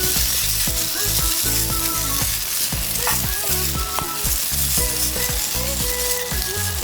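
Food frying on a hot iron plate, a steady sizzle, with a couple of short clicks from the cooking about three and four seconds in.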